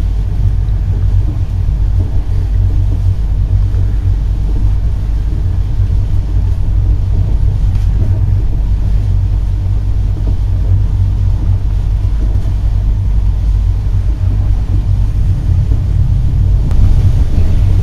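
Steady low rumble of a passenger train coach running along the line, heard from inside the carriage, growing a little louder near the end.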